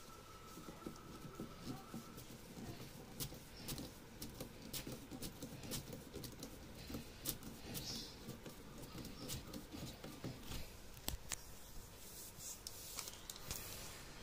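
Faint, irregular small clicks and scraping of a hand screwdriver turning a screw to fasten a plastic stand leg to the back of a TV.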